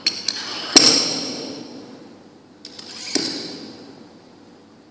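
Small metal change plates being loaded onto a barbell sleeve against a bumper plate. There are a few light clinks, then two sharp metal clanks that ring on briefly, the louder one just under a second in and the other about three seconds in.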